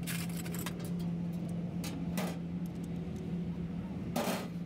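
Steady low machine hum, with scattered metal clinks and knocks of steel tools working on a heavy truck's wheel hub; the loudest is a short rattle about four seconds in.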